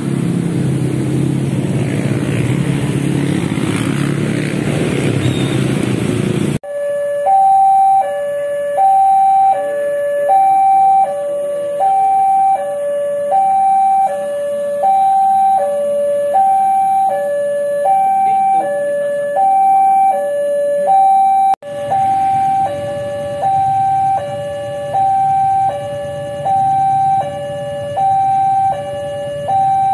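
Railway level-crossing warning alarm sounding as the crossing closes for an approaching train: an electronic two-tone signal alternating between a higher and a lower tone, about one high-low cycle every second and a half. For the first few seconds, before the alarm, there is only a low engine rumble.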